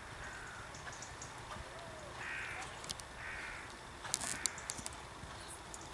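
A bird cawing: several harsh calls, the two loudest about two and three seconds in. A few sharp clicks follow about four seconds in.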